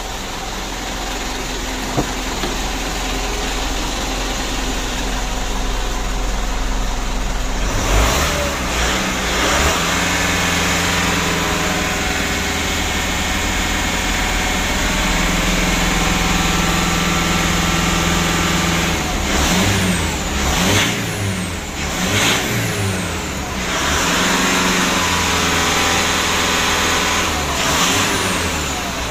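Mitsubishi Pajero Sport Dakar's four-cylinder turbodiesel idling, then revved up about eight seconds in and held around 2,500 rpm, dipping briefly a couple of times in the middle and easing back near the end. The freshly refitted turbo whines without any rattle: the turbo noise is cured.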